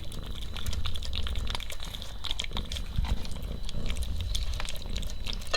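Cat eating, with a steady run of quick, wet chewing and smacking clicks.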